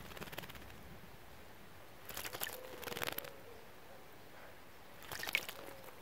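Female common redstart bathing in a shallow birdbath, splashing water in two bouts, a longer one about two seconds in and a shorter one near the end.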